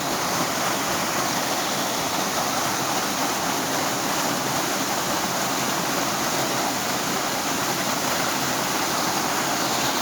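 Waterfall: a steady rush of falling water, with no break.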